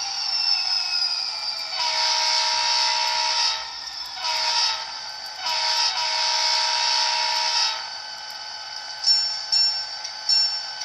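Digital sound of an EMD SD40T-2 diesel locomotive from an ESU LokSound decoder, played through an H0-scale model's small speaker: a falling whine, then the horn sounding long, short, long. The locomotive bell starts ringing about nine seconds in.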